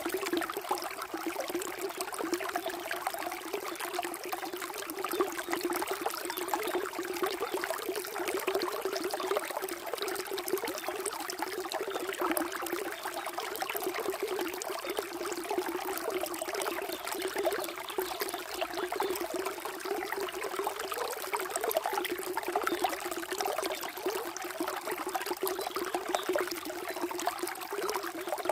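Water running steadily in a continuous, unbroken flow.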